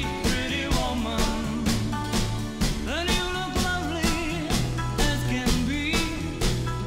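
Background music with a steady drum beat, bass and melody lines.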